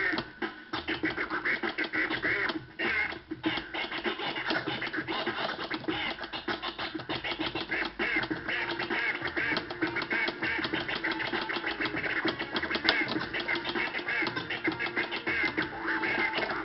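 Vinyl record scratched back and forth by hand on a turntable, the sound cut on and off very rapidly with the mixer's crossfader.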